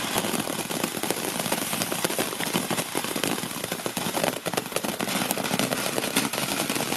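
Ground fountain firework spraying sparks: a steady hiss full of dense, rapid crackling that goes on without a break.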